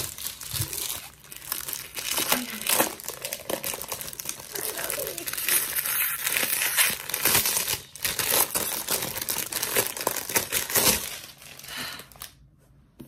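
Clear plastic shrink-wrap crinkling and tearing as it is pulled off a paperback workbook by hand. The crackling is continuous and irregular, and it dies away about a second before the end.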